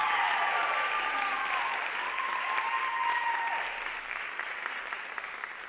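Audience applauding in a theatre, with two long, high cheers held over the clapping during the first three and a half seconds; the clapping thins out near the end.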